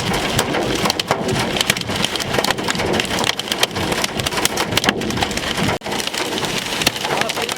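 Heavy thunderstorm rain pelting down, a dense steady hiss crowded with sharp individual drop strikes, from a supercell thunderstorm.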